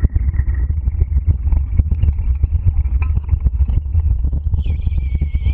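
Dryland dog rig rolling fast over a grass trail behind a four-dog team: a steady low rumble with wind on the microphone and constant rattling and clicking of the rig. About four and a half seconds in, a thin high squeal starts and holds.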